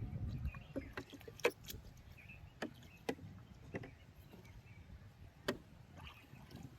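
A string of sharp, irregular knocks and taps, about ten over several seconds, the loudest about a second and a half in and again near five and a half seconds, over a low rumble that fades in the first half second.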